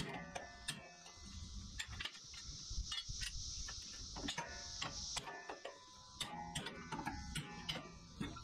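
Scattered light metallic clicks and clinks from a steel mower blade and wrench being handled, over a steady high-pitched drone of cicadas.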